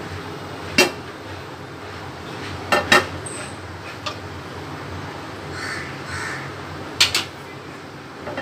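Several sharp knocks and clinks of a nonstick frying pan being moved on a steel gas stove, some in quick pairs, with two short bird calls about two-thirds of the way through.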